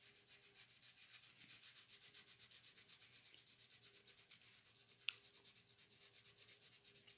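Scratch-off ticket being scratched off, a faint rubbing in rapid, even strokes, with one sharp click about five seconds in.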